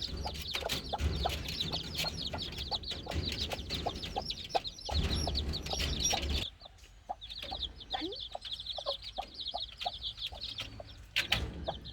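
A brood of chicks peeping busily, many rapid high falling chirps overlapping, with some lower short calls among them. A low rumbling noise runs under them for the first half and cuts off suddenly about six and a half seconds in.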